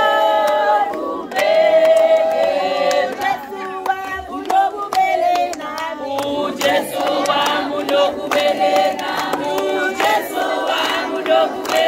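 A crowd of children and women singing together in unison, with hand clapping joining in from about halfway through.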